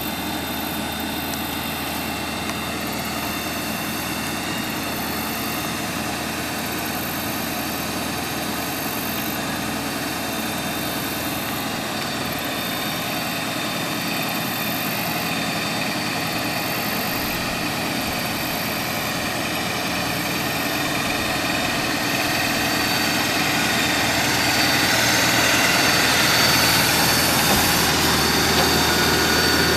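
Bucket truck's engine idling steadily, keeping the hydraulics running for the boom, which moves during this time. The sound grows gradually louder in the last third.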